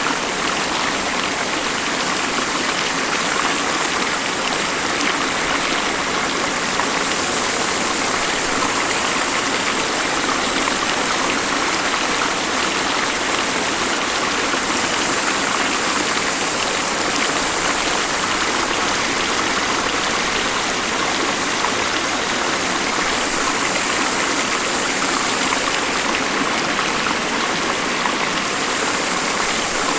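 The Beas River rushing steadily, a constant noise of fast-flowing water.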